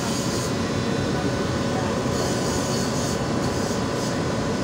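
Steady machinery noise: an even rumble with a few faint steady hums above it and no breaks.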